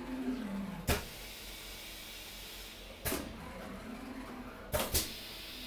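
Steady hiss of factory machinery with a few sharp clacks: one about a second in, one around three seconds, and two in quick succession near the end.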